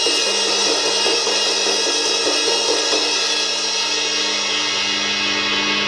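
XIII 18-inch crash cymbal struck hard with a stick several times, then left ringing. Its bright wash slowly dies away, the highest shimmer fading first.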